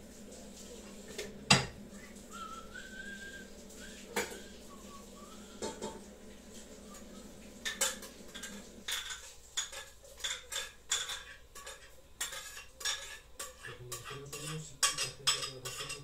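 Metal utensils clinking and scraping against cooking pots and pans. Scattered single knocks at first, then quick repeated strikes from about nine seconds in.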